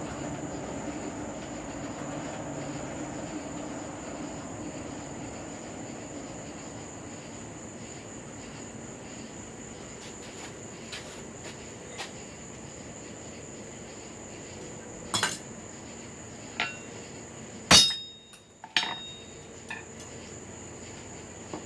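A few scattered metal-on-metal clinks and knocks of blacksmithing tools, the loudest a sharp strike with a brief metallic ring near the end. Under them runs a steady high insect chirring.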